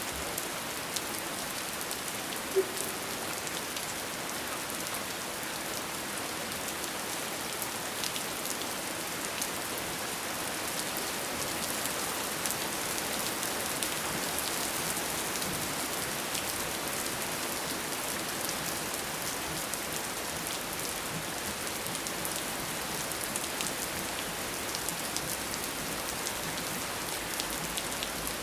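Steady rain falling, an even hiss dotted with many small individual drop ticks, with one louder tap about two and a half seconds in.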